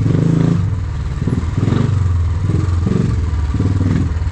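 Royal Enfield Classic 350's single-cylinder engine running on the move, its low thumping exhaust note rising and falling a little.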